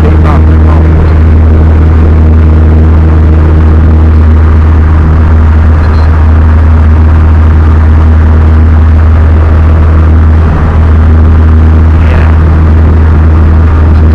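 Piper Tomahawk's four-cylinder Lycoming engine and propeller droning steadily, loud and close inside the small cockpit.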